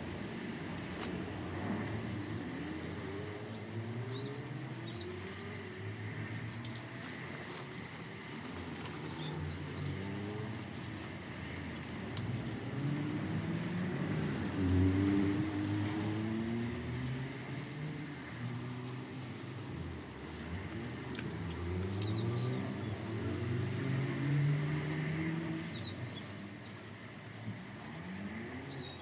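Birds calling: short gliding calls repeating throughout, with small clusters of high chirps now and then.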